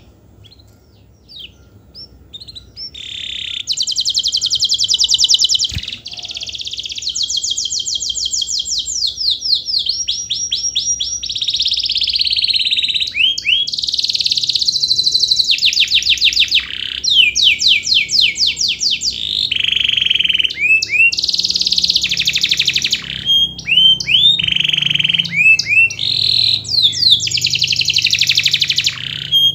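Domestic canary singing: a few scattered short rising chirps, then from about three seconds in a long, unbroken song of fast trills, held high whistled notes and quick rising slurs.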